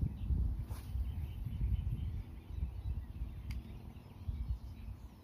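Wind buffeting the microphone: an uneven low rumble that rises and falls in gusts and eases off near the end.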